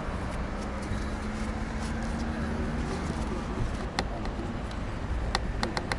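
Steady rumble of traffic from the surrounding car park, with a faint low hum for the first few seconds. About two-thirds of the way through there is a single light click, then four quick clicks near the end, as small metal and plastic cable-connector parts are handled.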